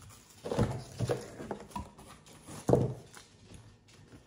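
Snack wrappers and a paper booklet being handled at a table: a few soft knocks and rustles, the loudest near the end of the first three seconds, then quieter rustling.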